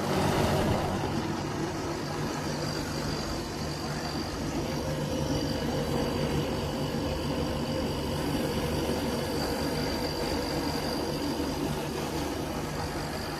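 Samsung window air conditioner running during refrigerant gas charging: a steady compressor and fan hum with a faint high whine over it.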